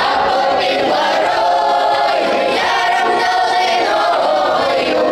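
Children's choir of boys and girls singing a Kuban Cossack marching song (stroyevaya) in the Kuban dialect, unaccompanied, many voices in unison.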